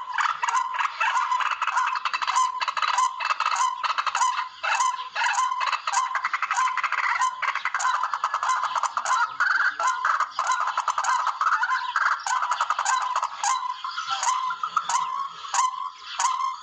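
Recorded calls of tikling (Philippine rails), a continuous run of short, harsh, squawking notes repeated rapidly without a break.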